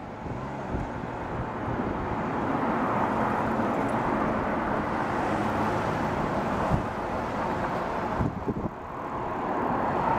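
Steady vehicle rumble with a low hum underneath, dipping briefly about eight seconds in.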